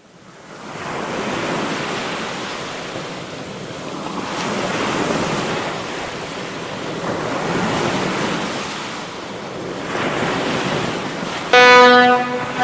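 Sea surf washing in and drawing back, fading in from silence and swelling roughly every three seconds. Near the end, music with held notes starts over it.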